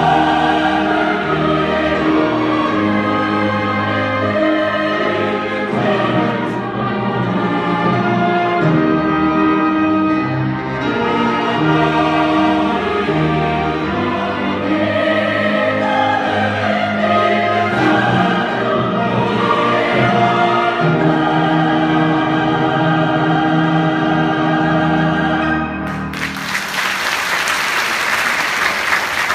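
Choir singing a hymn with orchestra, ending on a long held chord that cuts off. The audience then breaks into applause near the end.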